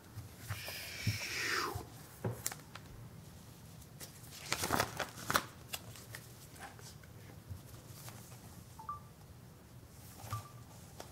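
Gloved hands handling watch packaging: intermittent rustling and a sliding rub, with a cluster of light clicks and taps about halfway through.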